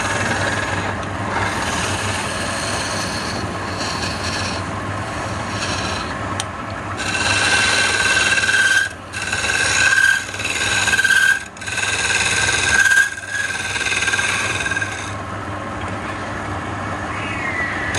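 Wood lathe running with a steady motor hum while a turning chisel scrapes and cuts the spinning wooden spindle. About a third of the way in the cutting gets louder, in four or five passes with brief breaks where the tool lifts off, and eases back near the end.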